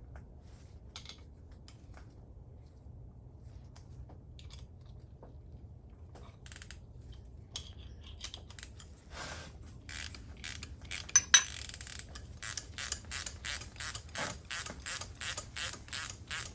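Ratchet wrench clicking as an exhaust manifold stud is backed out. A few scattered light tool clinks come first; from about ten seconds in there is a steady run of ratchet strokes, about two a second, with one sharper metal knock just after it starts.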